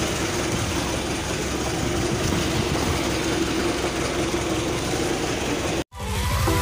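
Boat engine running steadily with a constant hum. It cuts off abruptly near the end and electronic music starts.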